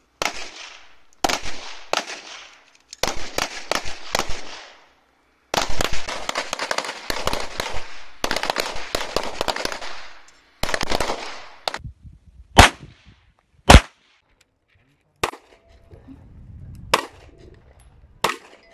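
Semi-automatic pistols firing at an outdoor range: several shooters at once in rapid, overlapping strings of shots that echo, then single shots spaced a second or more apart near the end.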